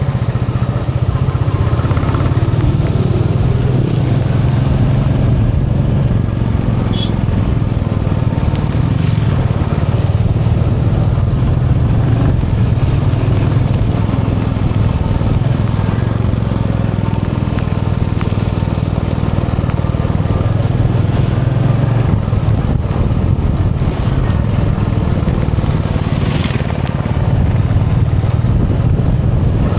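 Royal Enfield Bullet 350 single-cylinder engine running steadily while the motorcycle is ridden, its note shifting a little with the throttle, with some wind noise over the microphone.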